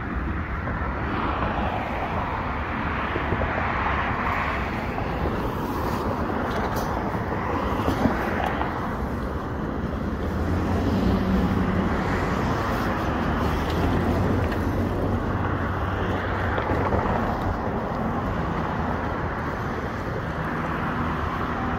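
Steady rumble of road traffic, with vehicles swelling and fading every few seconds.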